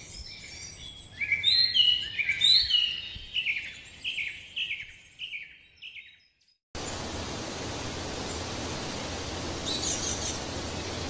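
A run of high-pitched animal calls, each a short chirp sliding downward, about two a second, fading out over about five seconds. After a brief gap, a steady hiss of background noise with a low hum follows, with one faint high chirp near the end.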